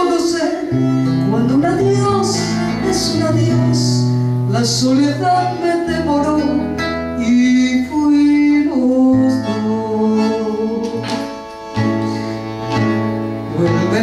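A woman singing a slow tango song into a microphone over instrumental accompaniment, with long held notes.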